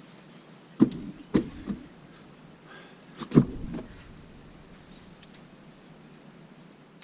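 Several sharp knocks and clunks of tools or parts being handled: three about a second in, then a louder cluster a little after three seconds.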